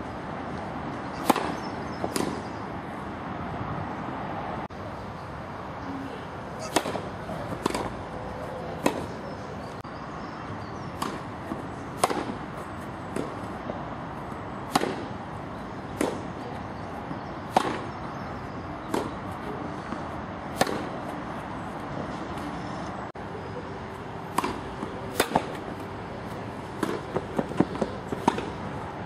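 Tennis ball struck by rackets in a rally: sharp pops every one to three seconds, some in close pairs, coming more quickly near the end.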